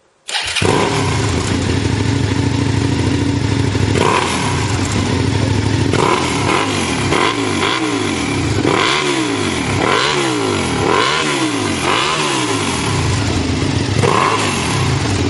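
Suzuki Gladius's 645 cc V-twin engine running through an Ixil aftermarket exhaust. It idles steadily, then is revved in a run of quick throttle blips, about one a second, before settling back to idle.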